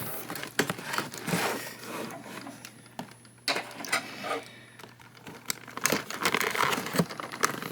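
Plastic and cardboard toy packaging being handled: irregular crinkling and rustling with small clicks and taps.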